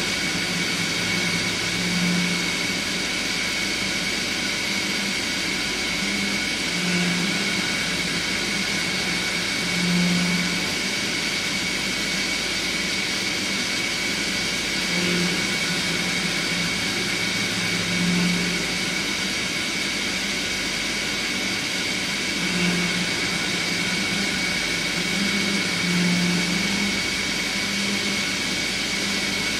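SOWIN SZ-125E2 Swiss-type CNC lathe running a machining cycle: a steady high spindle whine over the hiss of cutting oil spraying onto the work, with short low hums coming every few seconds.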